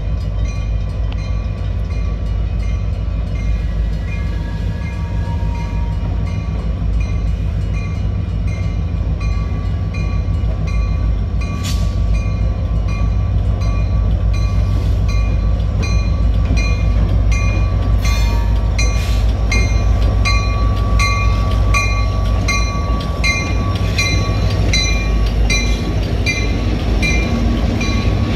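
Escanaba & Lake Superior freight train's EMD diesel locomotives, GP38 ELS 402 among them, rumbling as they approach and pass at low speed, growing louder over the second half. A crossing bell rings steadily, a little more than once a second.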